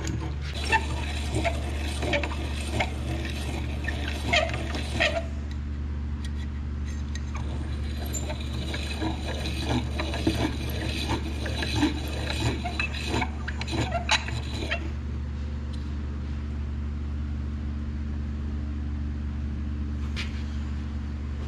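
Hand-cranked piston ring file grinding the end of a piston ring to widen its end gap: rapid rasping scrapes in two spells, one for the first five seconds or so and another from about eight to fifteen seconds in, over a steady low hum.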